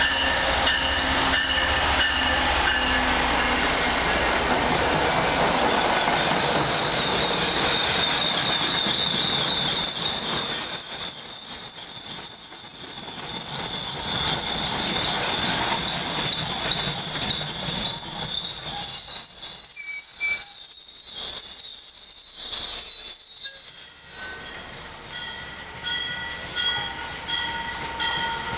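Siemens ACS-64 electric locomotive and its passenger coaches passing close by, a steady loud rush of wheels on rail with a high wheel squeal held through much of the pass. Near the end the sound drops off sharply to quieter rail noise.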